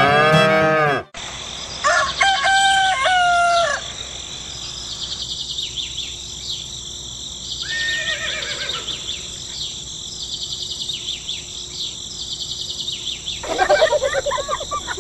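Farmyard sound effect: a rooster crows once, about two seconds in, lasting about two seconds, then birds chirp steadily. A short falling call comes near the middle, and a busier rattling call near the end. Before all this, a piece of music breaks off about a second in.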